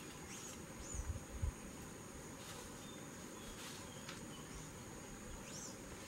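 Insects trilling in a steady, high-pitched drone, with a few short high chirps over it and two low thumps about a second in.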